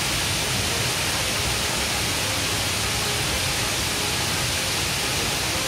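Steady, even rush of a waterfall's falling water, unchanging throughout.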